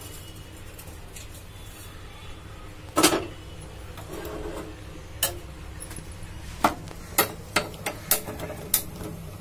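Stainless steel cooking pot being handled and set on a gas burner: one clatter about three seconds in, then a string of sharp metallic clicks and knocks in the second half, over a faint low hum.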